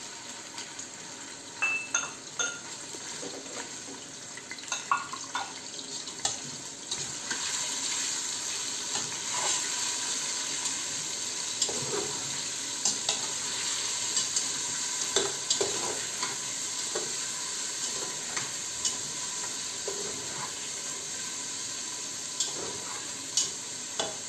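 Chicken cubes sizzling as they fry in hot oil in an aluminium pressure cooker. A metal spatula scrapes and knocks against the pot in short sharp clicks as the pieces are stirred. The sizzle grows louder about seven seconds in.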